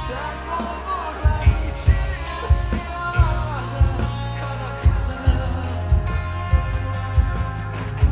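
Rock band playing live through a concert PA: drums and amplified instruments in a passage between sung lines, with a melodic lead line over the beat.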